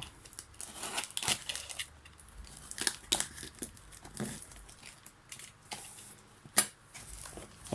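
Packing material in an opened parcel crinkling and rustling as it is handled, with irregular crackles and one sharp, loudest snap about six and a half seconds in.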